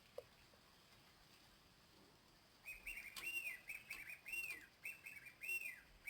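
Animal chirping: a quick run of high, arching chirps, several a second, starting about two and a half seconds in.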